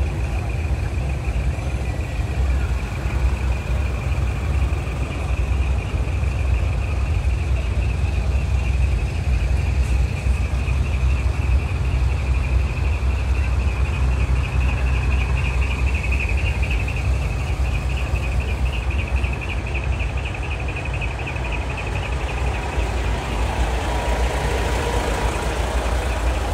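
Large truck's diesel engine idling: a steady low rumble, with a thin, steady high-pitched tone above it.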